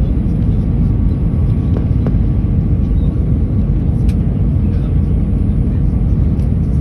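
Steady low rumble of a jet airliner's cabin noise during the approach to landing: engines and rushing airflow heard from inside the cabin by the wing.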